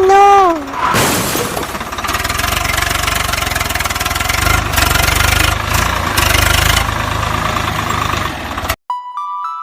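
Tractor engine running steadily with a pulsing low throb, cutting off abruptly near the end. A brief wavering pitched call opens the stretch, and a short steady beep follows the cut-off.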